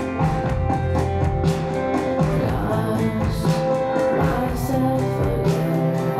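Music: a song with a singing voice and guitar over a steady beat.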